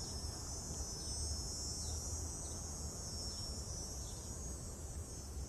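Crickets calling in a steady, unbroken high-pitched trill, with faint short chirps coming about once a second.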